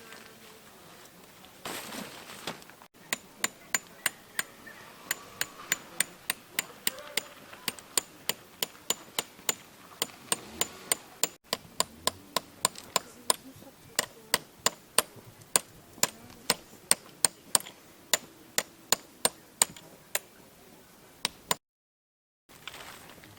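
Tent pegs being hammered into the ground: a long run of sharp, metallic strikes, about two to three a second, with brief breaks where the footage is cut.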